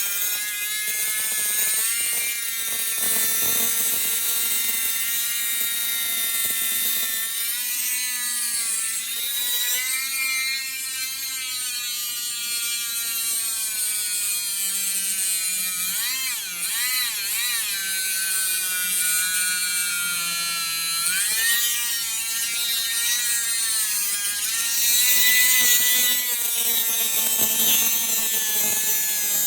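Dremel Stylo+ rotary tool with a tile-cutting bit grinding a hole into a tough seashell. It is a steady motor whine whose pitch wavers, wobbling most about halfway through.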